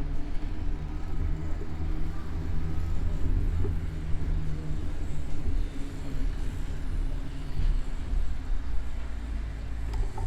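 City road traffic: a motor vehicle's engine rumbling low and steady close by.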